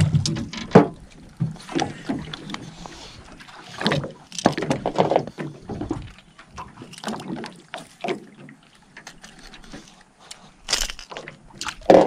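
Water splashing and sloshing as a hooked fish thrashes at the surface beside an aluminium boat, with scattered sharp knocks and clicks, the loudest about a second in.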